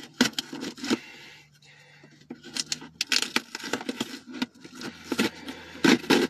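A package being opened with a key: irregular scraping, tearing and rustling of the packaging, with the loudest scrapes near the end.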